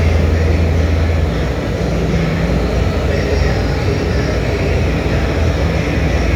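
Industrial annealing furnace running with its mesh conveyor belt in reverse under load: a steady, loud machine noise with a strong low hum under a broad rush.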